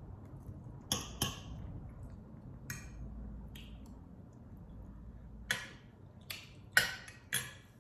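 Eating noises: a scattered run of about eight short, sharp clicks and clinks, the loudest ones near the end.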